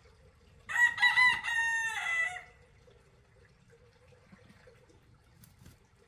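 A rooster crowing once, for about two seconds: a few short choppy notes, then a long held note that falls away at the end.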